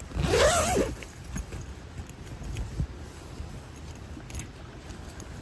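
Tent fabric and gear rustling and clicking close to the microphone, with a short sound that wavers in pitch about half a second in.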